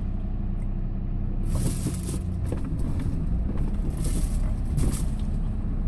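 Vehicle driving, heard from inside: a steady low engine and road rumble, with a few brief hissing swells about one and a half, four and five seconds in.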